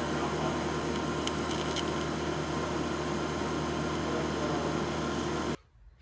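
TIG welder arc burning steadily as the throttle-pedal bracket is fully welded: a continuous hiss over a steady hum, which cuts off suddenly about five and a half seconds in.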